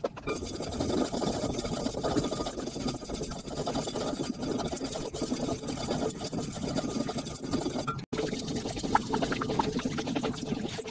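Wooden spoon stirring chilli flakes around an aluminium pot: a steady run of grainy scraping, broken by a brief dropout about eight seconds in. After the dropout the flakes are being stirred in oil.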